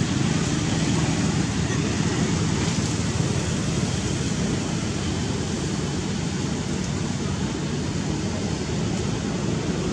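Steady rushing outdoor background noise with no distinct animal calls or knocks.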